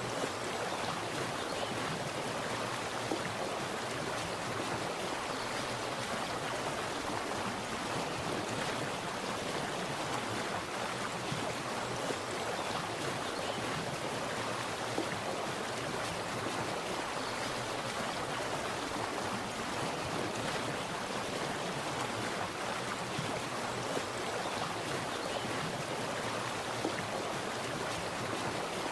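Water splashing and running in a steady, unbroken rush, like a small stream or cascade.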